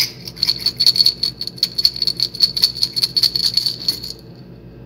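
Salt shaker with a metal cap shaken hard over a bowl, the grains rattling in quick repeated shakes, about five a second, stopping near the end.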